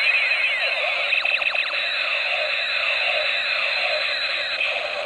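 Battery-powered toy space gun's electronic sound effect: a continuous stream of overlapping laser-like tones sweeping up and down in pitch.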